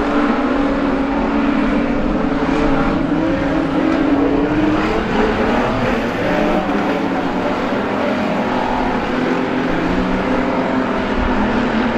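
Engines of a pack of street stock race cars running hard on a dirt oval. Several engine notes overlap, their pitches drifting up and down as the cars race past.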